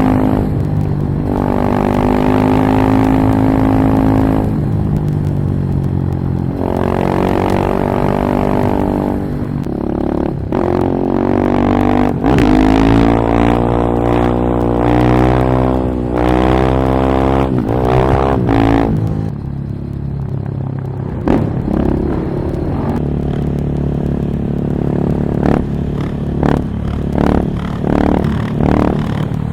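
Single-cylinder Husqvarna 701 supermoto engine through an Akrapovič silencer, accelerating with its pitch rising and dropping back several times as it shifts gears. Near the end come a handful of short, sharp throttle blips.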